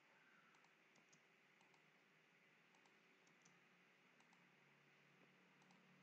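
Near silence, with a scattering of very faint clicks from a computer mouse.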